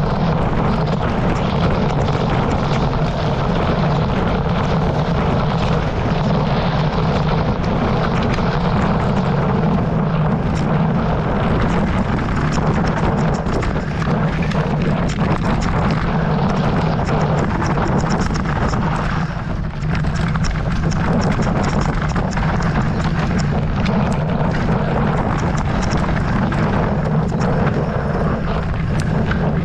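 Electric mountain bike ridden along a dirt forest trail, heard from a camera on the bike: a steady rumble of tyres and wind on the microphone, with many small clicks and rattles from the bike over the ground. The noise eases briefly about two-thirds of the way through.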